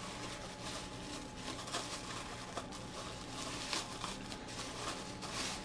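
Packing material being handled: irregular crinkling and rustling of foam, cardboard and tape as parts are pulled from a box, over a faint steady hum.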